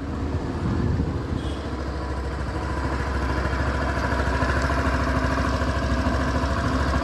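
Suzuki Access 125 scooter's single-cylinder four-stroke engine idling steadily, heard through its exhaust.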